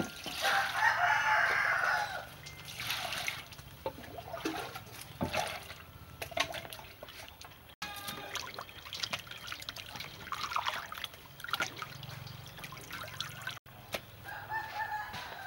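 A rooster crows for about two seconds at the start and again more faintly near the end. In between, water is poured into a steel bowl and splashes as raw pork is washed in it by hand.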